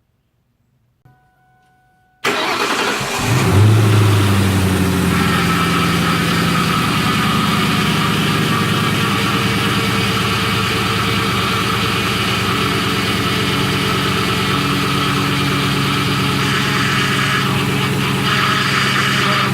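2004 Ford Mustang engine cranked by the starter about two seconds in, catching within a second with a brief rev-up, then settling into a steady idle with a high whine over it. This is the start-up whine the owner suspects is tied to a power steering fluid leak or the brakes.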